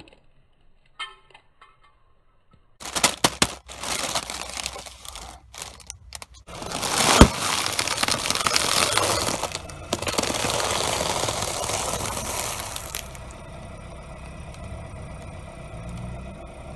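Objects cracking and crunching as they are crushed under a car tyre. Scattered sharp cracks begin about three seconds in, then a dense crunching and crackling with one sharp crack, easing to a quieter steady noise for the last few seconds.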